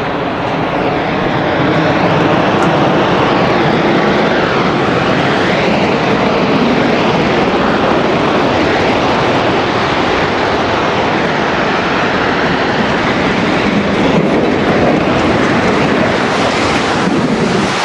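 Loud, continuous rumbling roar of a World Trade Center tower collapsing, holding steady throughout with no separate impacts.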